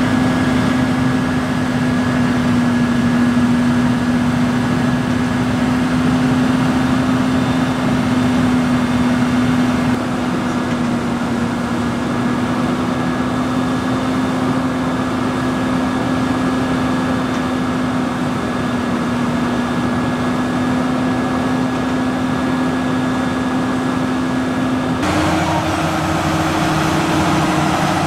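Large farm-tractor diesel engines running at steady revs under load, a held engine hum over dense machinery noise. About 25 seconds in the sound switches abruptly to a different engine note with several steady tones.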